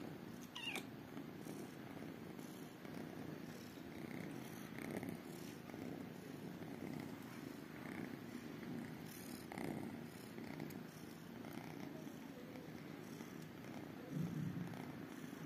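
Small tabby and calico kittens purring softly and steadily.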